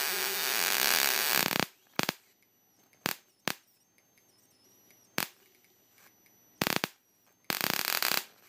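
High-voltage arc from a homemade flyback-transformer supply with a capacitor in circuit, discharging to a xenon flash tube's electrode. A loud continuous arc runs for about a second and a half and then cuts off suddenly. It is followed by a string of short, separate bursts of sparking and a longer burst of arcing near the end.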